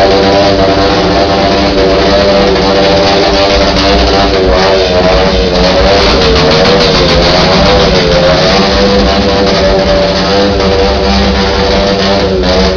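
An engine held at high revs, its pitch wavering slowly up and down.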